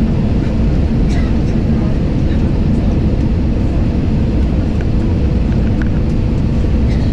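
Steady cabin roar of an airliner on its landing approach: turbofan engine and airflow noise heard from a window seat near the engine, heaviest in the low end, with a faint steady hum.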